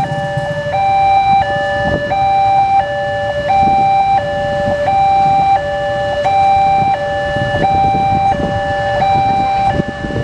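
Railway level-crossing warning alarm sounding a repeating two-tone chime, high then low, about one cycle every 1.4 seconds, the signal that a train is approaching. Waiting motorcycle and car engines idle in a low rumble underneath.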